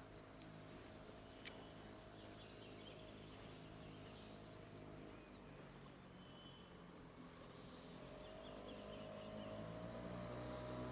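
Faint steady hum of an engine running at a distance, growing louder from about eight seconds in, with small birds chirping over it and a single click about a second and a half in.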